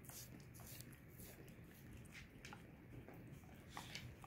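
Faint, irregular wet smacks and clicks of a dog licking a bare foot.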